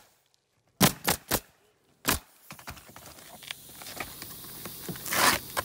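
Pneumatic coil roofing nailer driving nails into asphalt shingles: four sharp clacks in quick succession within the first two seconds, then low handling noise and a brief scuff near the end.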